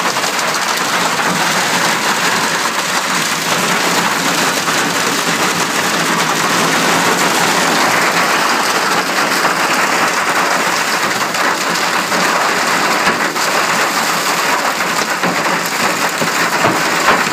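Heavy hail and rain pelting a vehicle and the vineyard around it: a dense, steady clatter of countless small impacts.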